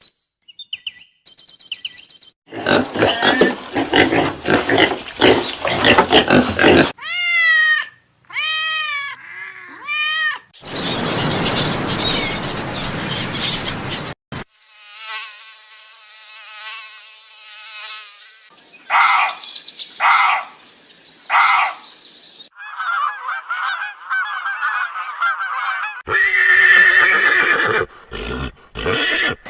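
A string of short animal calls cut one after another, each a few seconds long and stopping abruptly: harsh noisy calls, a run of rising-and-falling squealing calls near the middle, and several more distinct calls after it.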